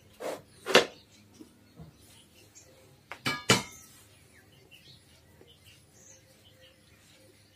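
Stainless steel lid and bowl clinking, with a brief metallic ring about three seconds in as the lid comes off the bowl of momo filling. Two short dull knocks come in the first second.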